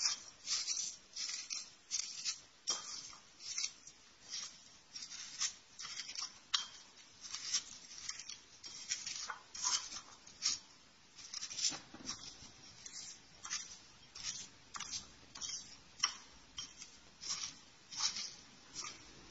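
Metal spoon scraping and crushing crackers and wheat flour against a ceramic bowl, in short repeated strokes about two a second, grinding the crackers down fine into the flour.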